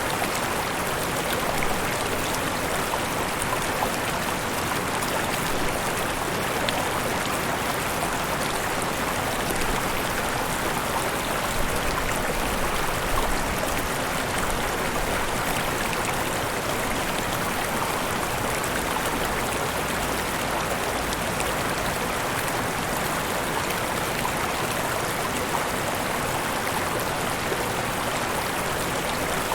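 Mountain river running over small waterfalls: a steady, even rush of falling and flowing water.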